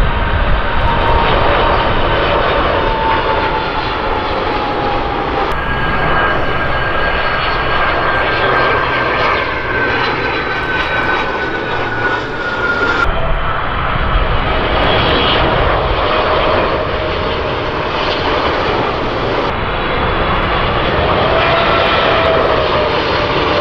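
Jet aircraft on final approach with gear down, passing low overhead one after another: a Boeing 747-400's four turbofans, then a Learjet's rear-mounted twin jets, then a Boeing 777's big twin turbofans. The jet engines make a dense rushing noise with a whine that slides slowly down in pitch as each plane goes by, and the sound changes abruptly three times as one aircraft gives way to the next.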